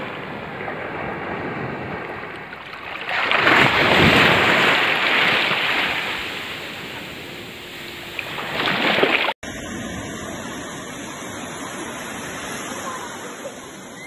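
Sea surf washing up a sandy beach. A wave rushes in about three seconds in and slowly ebbs, another surges just before nine seconds, then the sound breaks off abruptly into a steadier, quieter wash of shallow water over sand.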